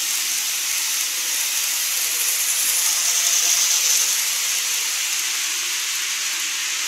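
N-gauge model train running across a plastic model truss bridge: a steady high hiss of wheels on track and the running motor, easing slightly once the train has cleared the bridge about four seconds in.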